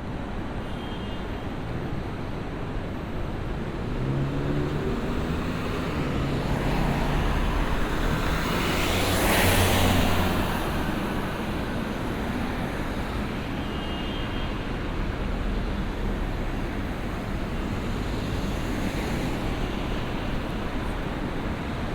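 City street traffic: a steady rumble of passing cars, with one vehicle passing close and swelling loudest about nine to ten seconds in.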